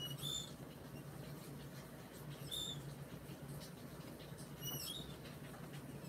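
Three short high-pitched squeaks, a little over two seconds apart, over a faint steady low hum.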